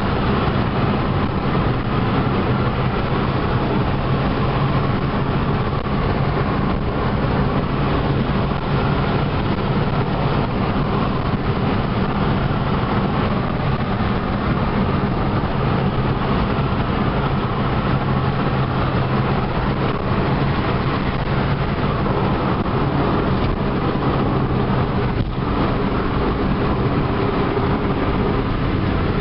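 Mk4 Ford Fiesta 1.25 four-cylinder petrol engine and tyre road noise heard from inside the cabin while driving. The engine holds a steady low hum, as at a constant cruising speed.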